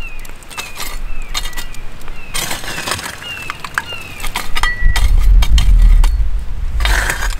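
A small steel shovel scraping and scooping hot coals out of a steel fire-pit ring, with clinks and crunches of coal on the blade as they are lifted and dropped onto a pile. A low rumble comes in about five seconds in.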